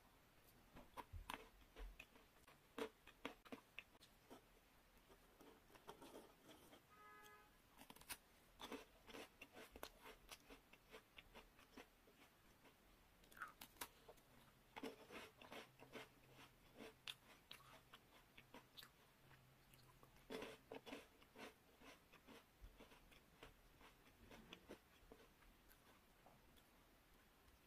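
Close-up crisp bites and chewing crunches of chocolate-coated biscuit sticks and a rolled wafer stick. The crackles come in quick clusters with short lulls between them.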